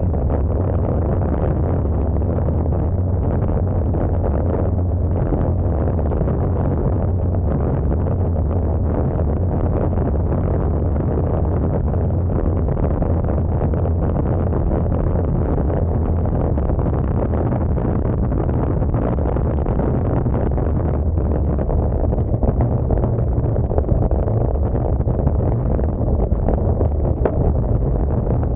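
Steady, heavy wind rumble on the microphone while riding a racing bicycle at speed, with the air noise heaviest in the low end. It gets a little more gusty and uneven in the last few seconds.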